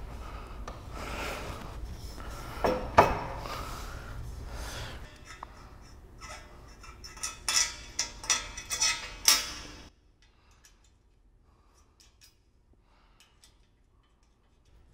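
Aluminium gangway extrusions knocking and clinking together as a crosspiece is worked into the side rail by hand: one loud knock about three seconds in, then a quick run of sharp metal clicks, then a few faint ticks.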